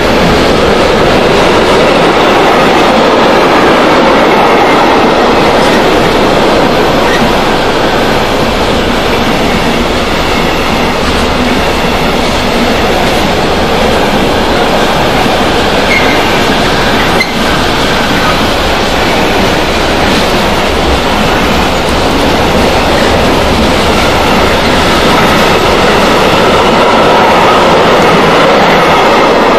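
Intermodal freight train's wagons, loaded with lorry trailers, rolling past at speed with a loud, steady rumble and clatter of wheels on rail.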